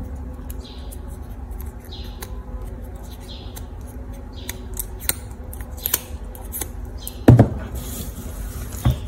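Small scissors snipping and clicking on a plastic drinking-straw petal, a string of light, crisp ticks and snips about every half second. A louder knock comes about seven seconds in, with a smaller one near the end.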